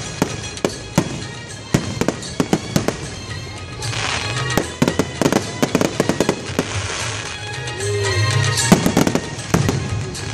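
Aerial fireworks display: a rapid series of sharp bangs from shells bursting, growing denser and louder with crackling from about four seconds in.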